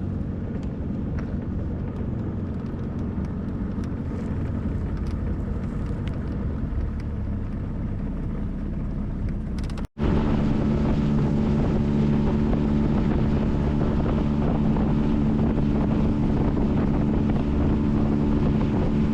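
Boat motor running, with wind on the microphone. There is an abrupt cut about ten seconds in, after which the engine hum is louder and steadier.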